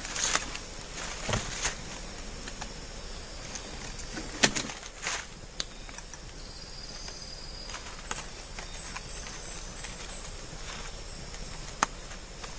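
Rainforest ambience: a steady high insect hiss, with scattered rustles and small clicks close by and one sharper knock about four and a half seconds in.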